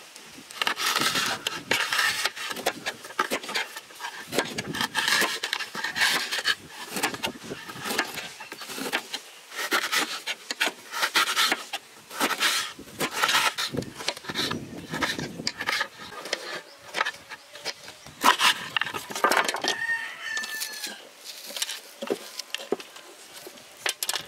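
Chickens clucking in a run of short bursts, with a single longer call about twenty seconds in.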